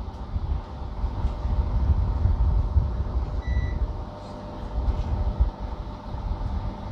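Steady low rumble and faint hum of room noise, with one short high beep about halfway through.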